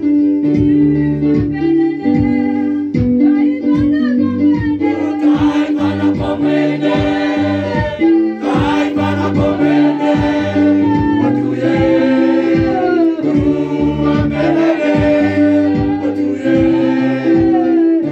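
Gospel song with guitar and a steady drum beat under sung voices; the singing grows fuller, like a group joining in, from about five seconds in.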